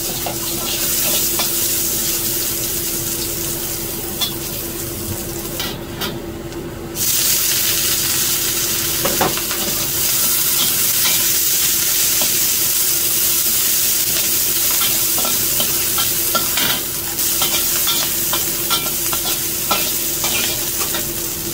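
Scallions stir-fried in hot oil in a carbon-steel wok: a steady sizzle, with a metal spatula scraping and tapping against the wok. The sizzle grows louder about seven seconds in.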